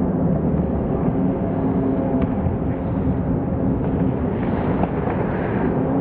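Hockey rink game audio slowed down for a slow-motion replay: a deep, smeared rumble with a steady low hum and no clear words.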